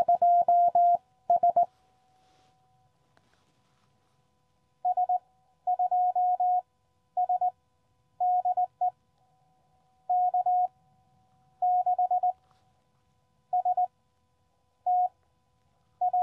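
Morse code (CW) tones at one steady mid pitch from a QCX Mini CW transceiver during a summit-to-summit contact: a quick, loud group of dots and dashes at the start, then after a pause of about three seconds a slightly quieter run of spaced-out characters.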